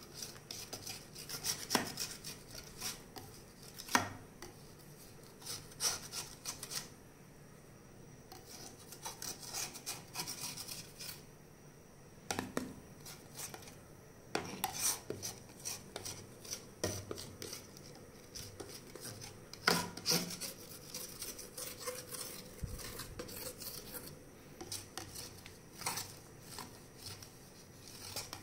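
Kitchen utensils scraping and tapping against the rim and sides of a stainless-steel pot of boiling, foaming jam, in irregular strokes and sharp clicks, as the edges of the pot are cleaned.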